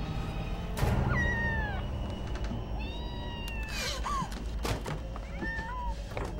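A sharp thump, then a cat meowing about four times, drawn-out calls that fall in pitch, over a low steady drone.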